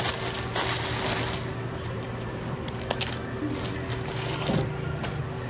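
Sandwich wrapping paper rustling and crinkling as plastic-gloved hands handle and fold it, in bursts near the start and again near the end, with a few sharp clicks in the middle, over a steady low hum.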